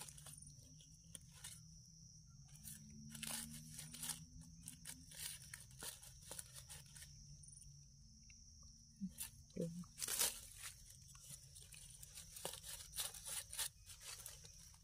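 Dry leaf litter crackling and a knife scraping as it digs mushrooms out of the forest floor: quiet, scattered small crunches and clicks, the loudest crack about ten seconds in.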